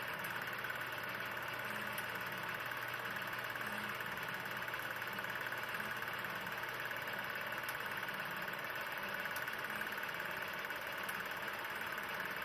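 16 mm film projector running: a steady mechanical whir under hiss, with faint ticks every second or two.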